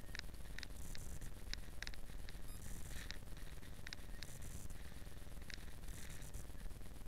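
Muffled low rumble of a Yamaha XJ6 Diversion motorcycle riding on an icy road, heard through a mounted camera, with irregular light rattling clicks throughout.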